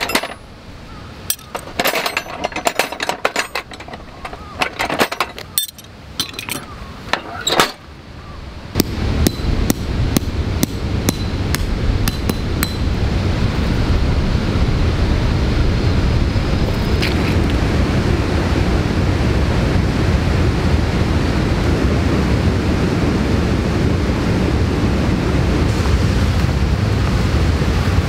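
Metal tent pegs clinking and rattling against each other in a steel tool box as hands sort through them. About nine seconds in, a steady, loud rushing noise takes over.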